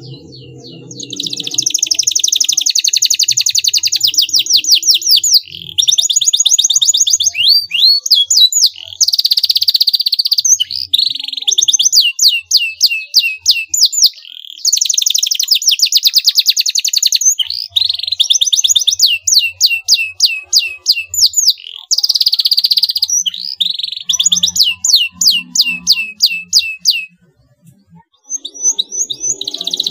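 Canary singing loudly in long, high-pitched phrases of very fast rolling trills and runs of sharp repeated notes, with short breaks between phrases; the song stops for about a second near the end, then starts again.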